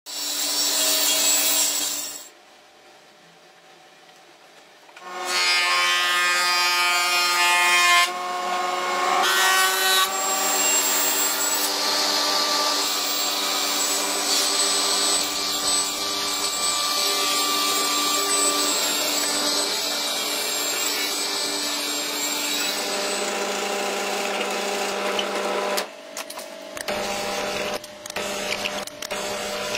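Table saw running and cutting wood, with a steady whine, stopping for a few seconds about two seconds in. Near the end, a drill press bores into wood with a Forstner bit.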